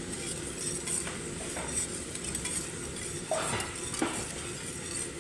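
Wire whisk stirring a pot of boiling liquid, its wires clinking and scraping against the inside of the stainless steel pot in quick, irregular strokes.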